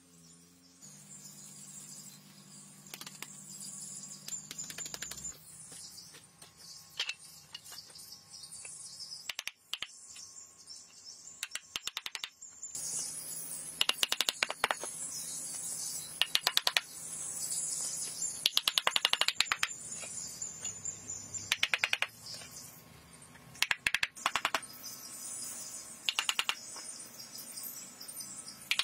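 Split bamboo slats clacking and rattling against each other in quick clusters of clicks as they are handled and laid down, over a steady chirping of insects. The clatter starts about halfway through and comes in several short runs.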